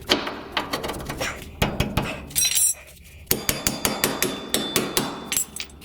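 Hammer striking metal: irregular blows with metallic ringing, a short pause about halfway, then a quick run of even strikes at about five a second.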